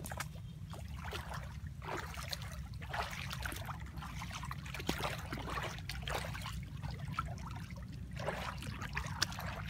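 Shallow floodwater splashing and trickling in short irregular bursts as someone wades through it, with a steady low rumble underneath.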